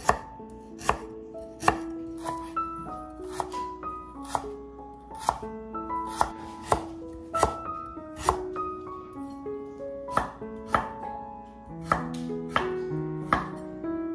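Chef's knife chopping peeled ginger root on a wooden cutting board: sharp knocks of the blade on the board, about one a second. Soft background music plays underneath.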